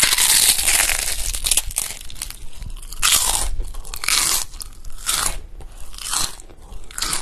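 Crunchy food being bitten and chewed: a dense crackling crunch at first, then single sharp crunches about once a second.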